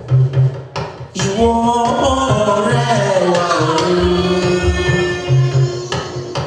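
A group of women singing a hymn into microphones over a beating drum. The drum drops out about a second in while the voices hold a long sung line, and comes back near the end.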